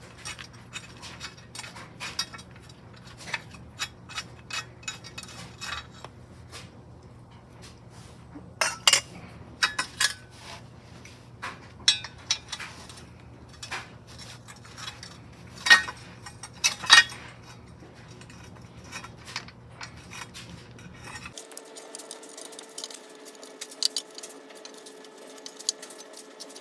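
Metal hand tools and car parts clinking and tapping in irregular sharp clicks over a low steady hum. About three-quarters of the way through, the hum stops and a faint steady tone takes its place.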